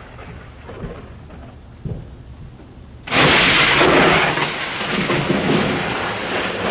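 Thunderstorm: a sudden loud crash of thunder with heavy rain that cuts in about three seconds in and carries on steadily, after a quieter stretch with a few faint knocks.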